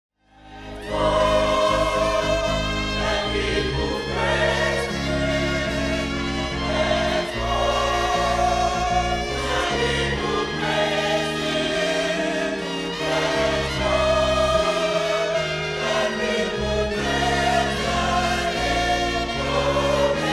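Choir singing gospel music with instrumental backing, fading in over the first second.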